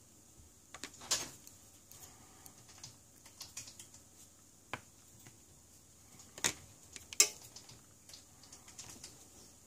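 Scattered light clicks and taps of small repair tools, a precision screwdriver and tweezers, being handled against an opened smartphone and the table, with three sharper knocks about a second in and twice near the six-to-seven-second mark.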